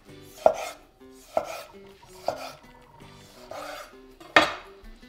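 Five short soft knocks with a brief scrape after each, about a second apart and the last the loudest: cherry tomato halves being handled and set down around a glass cake stand.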